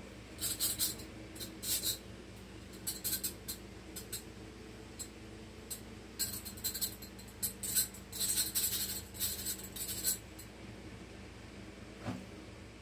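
Straw-cleaning brush scrubbing inside a reusable straw: short scratchy strokes in quick clusters, then a single soft knock near the end.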